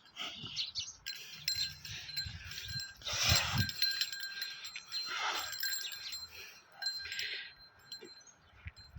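Small metal bells jingling in irregular shakes, with steady ringing tones under the jingle, and a louder burst about three seconds in.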